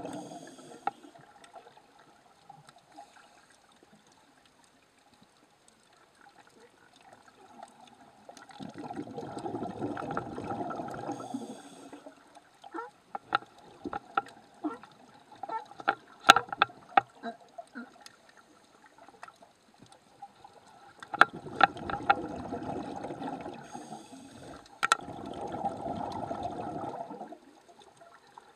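Underwater, a scuba diver's exhaled breath bubbles out of the regulator in two long rushing gurgles, about nine seconds in and again past twenty seconds. Between them come clusters of sharp clicks and knocks.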